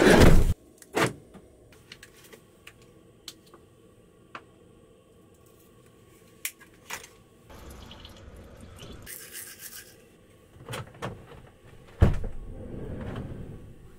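Handling sounds: scattered knocks and clicks with stretches of soft scratchy rubbing, and a loud thump at the start and again about twelve seconds in.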